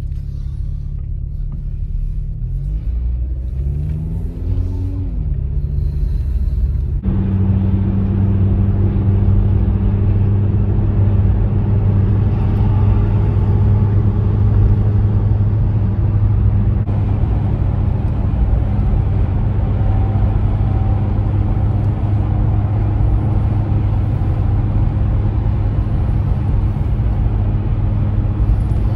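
Car engine and road noise heard inside an Audi's cabin. Over the first few seconds the engine pulls away with a rising pitch. After that it settles into a steady drone of engine and tyres at motorway cruising speed.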